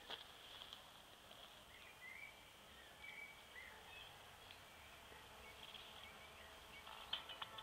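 Faint outdoor quiet with a few scattered, faint bird chirps. There are a few soft clicks near the end.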